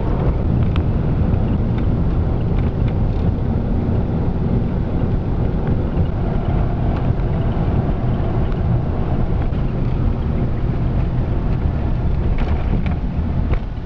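Steady low rumble of a car's engine and tyres heard from inside the cabin while driving, with a few faint clicks near the end.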